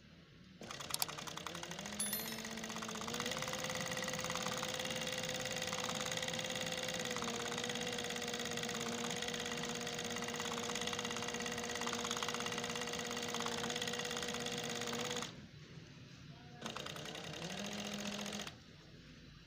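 Industrial sewing machine stitching decorative cord trim onto fabric: it starts about half a second in, its hum rising in pitch as it speeds up over the first few seconds, then runs steadily. It stops about 15 seconds in, runs again briefly, and stops near the end.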